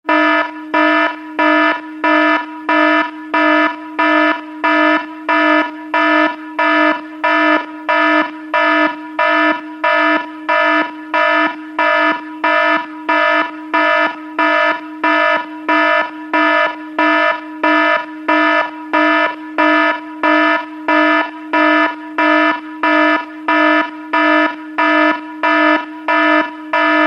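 Electronic alarm buzzer sounding as a cartoon sound effect: one harsh, buzzy tone of unchanging pitch, pulsing evenly about three times every two seconds.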